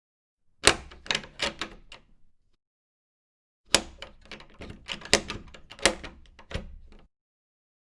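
Door knob being turned and released, its latch clicking and rattling: a short burst of clicks about a second in, then a longer run of clicks and rattles from about four to seven seconds in.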